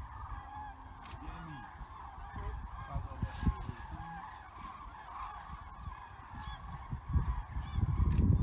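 Flock of common cranes calling in flight, a continuous chorus of many overlapping calls, with a low rumble that grows louder near the end.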